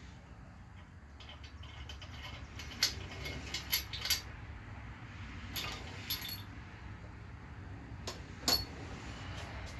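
Scattered light metallic clinks and clicks of parts and tools being handled on an engine under rebuild, over a steady low hum.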